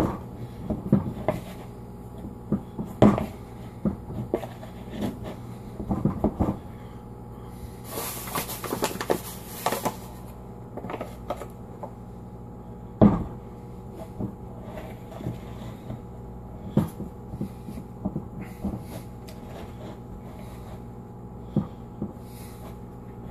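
Hands mixing and kneading dough in a plastic mixing bowl: irregular knocks and bumps of the bowl against the table, with a stretch of scraping and rustling about a third of the way in.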